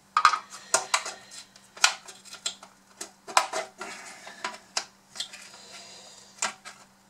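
Irregular clicks, taps and knocks of the hard plastic body parts of a Bruder CAT D11 toy bulldozer being handled and worked at during disassembly. A faint steady hum runs underneath.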